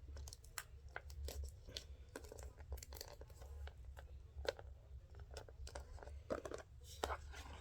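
Ziploc plastic bag and tape being handled and pressed down by hand: a faint run of irregular crinkles and crackles.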